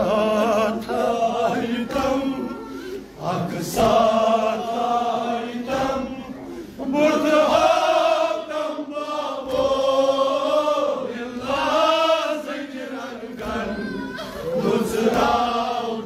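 Man chanting a Kashmiri nauha, a Shia lament, unaccompanied, in long drawn-out phrases with wavering held notes and short pauses between lines.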